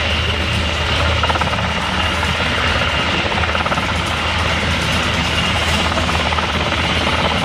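Sikorsky HH-60 Pave Hawk helicopter hovering low: a steady, deep rotor beat with a constant high whine from its twin turboshaft engines.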